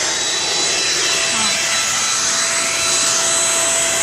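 Shark Rocket compact vacuum cleaner running steadily at full speed: a rush of air with a high, even motor whine.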